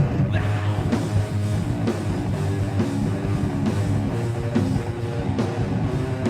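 Heavy metal band playing live: distorted electric guitars and bass over a drum kit, with no vocals.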